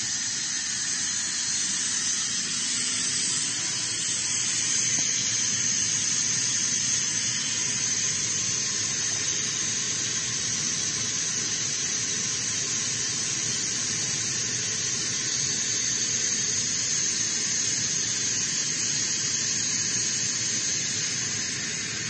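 Kaeser ASD 50 oil-injected rotary screw air compressor running on load at about 8 bar: a steady machine noise with a strong high hiss. Right at the end it unloads to idle and the sound begins to ease off.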